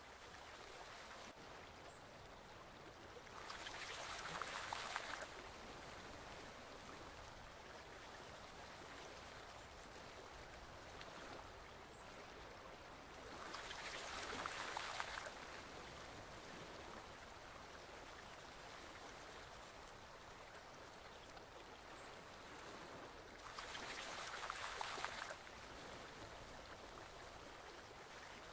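Forest stream flowing steadily, a soft rushing of water that swells louder for a couple of seconds three times, about ten seconds apart.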